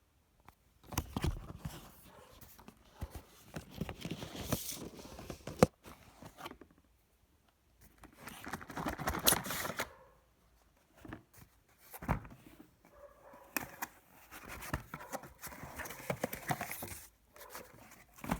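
A graphics card's cardboard retail box being opened and its paper inserts handled: irregular rustling, tearing and scraping with sharp knocks, broken by short quiet pauses.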